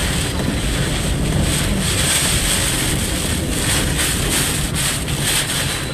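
Hurricane-force eyewall wind of Hurricane Michael blowing hard and steadily in gusts around a car, with wind rumbling on the microphone.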